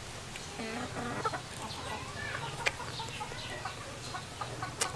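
Chickens clucking, with short calls scattered through, and a few sharp clicks.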